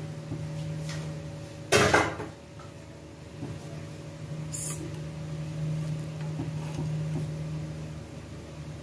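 A pan lid set down with a short metallic clatter about two seconds in, then a lighter click a few seconds later, over a steady low hum.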